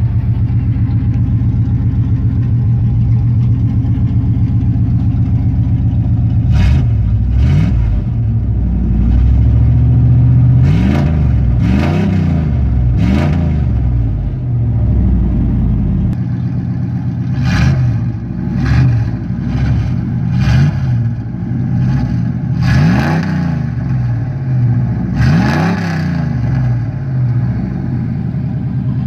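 1989 Chevrolet Silverado's 5.7-litre V8 idling steadily, then blipped repeatedly from about six seconds in: a string of short revs, each rising and falling back to idle.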